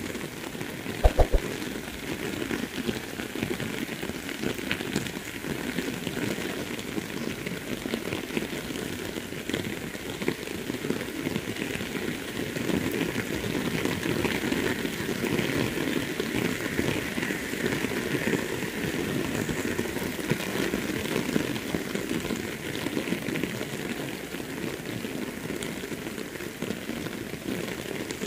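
Steady rain falling, an even, dense hiss of drops. A couple of short, soft thumps about a second in.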